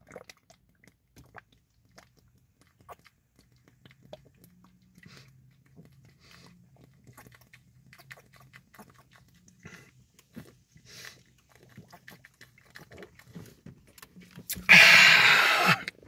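A man chugging a 20 oz plastic bottle of ice-cold Coca-Cola: a long run of quiet gulps and swallows, with the plastic bottle crackling as it collapses. Near the end he comes off the bottle with one loud, breathy gasp lasting about a second.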